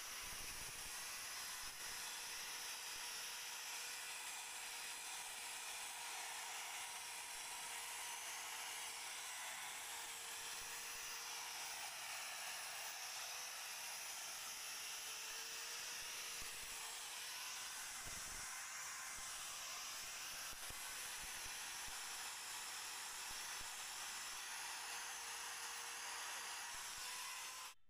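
Handheld electric drill spinning a sanding pad against a carved wooden door: a steady motor whine over the hiss of the abrasive on the wood, its pitch wavering slightly now and then as the pad bears on the surface. It cuts off suddenly near the end.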